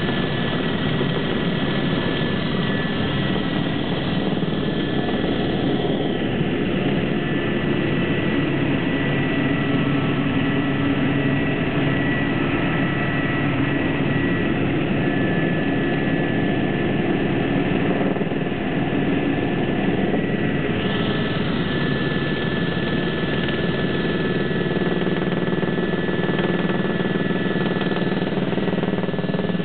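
Eurocopter AS350 Squirrel helicopter in flight, heard from inside the cabin: a steady, loud rotor and turboshaft engine drone with a thin, high turbine whine held over it.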